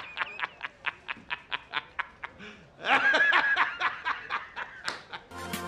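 A man laughing hard in rapid, rhythmic pulses of about five a second, breaking into a louder, longer burst of laughter about three seconds in. An outro music jingle starts just before the end.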